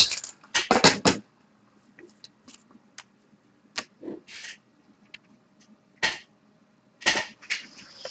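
Scattered clicks and taps of cards and paper slips being handled on a tabletop: a quick run of sharp clicks about a second in, then sparse, quieter taps and short brushing rustles.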